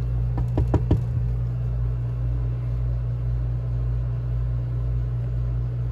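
A hand tapping rapidly on a motorhome window's glass, about five quick knocks in the first second. Under it is a steady low hum from the motorhome's air conditioner.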